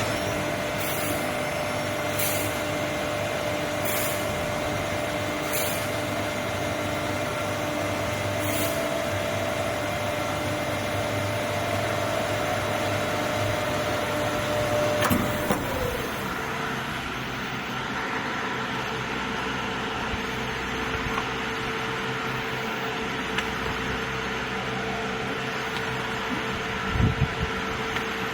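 Rubber bale cutter's hydraulic pump unit running with a steady hum. Its tone drops slightly just after a sharp click about halfway through, and a couple of knocks come near the end.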